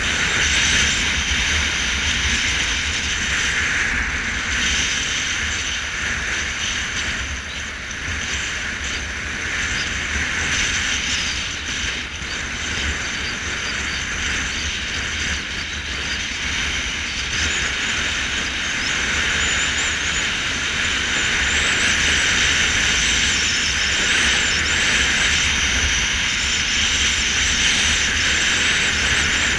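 Motorcycle riding at a steady cruise: a steady rush of wind on the microphone over a low rumble of engine and road noise, getting a little louder in the second half.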